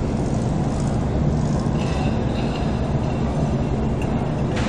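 Steady low engine rumble on a ferry's vehicle deck as vintage air-cooled Volkswagen split-window buses drive off. One sharp click comes near the end.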